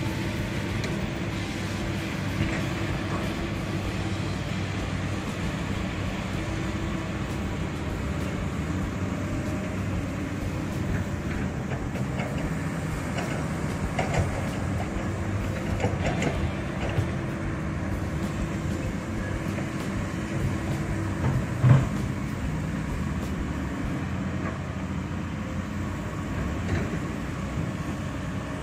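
Heavy diesel engines of two Kobelco SK200 crawler excavators running steadily under load as they dig and load soil into dump trucks, with a few short knocks; the loudest comes about three-quarters of the way through.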